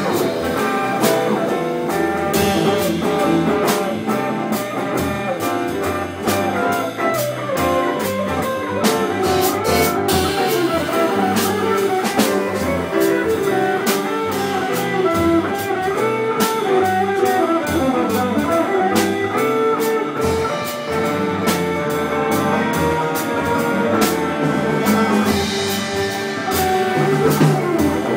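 Small jazz band playing live: a hollow-body electric guitar solos over piano, upright bass and drum kit.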